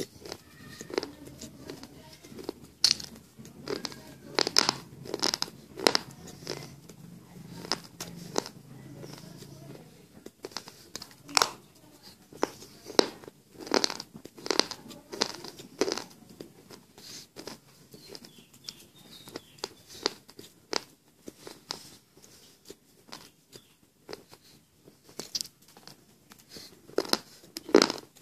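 Slate pencil chips being bitten and chewed close to the microphone: a run of sharp, irregular crunches, a few a second, some much louder than others.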